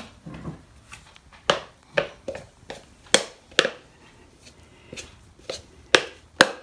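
A kitchen utensil knocking and scraping against a mixing bowl as soft dough is turned out of it: a dozen or so sharp, irregular taps.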